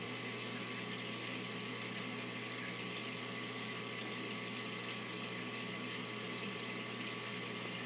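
Aquarium pump and rising streams of air bubbles: a steady low hum under an even watery hiss.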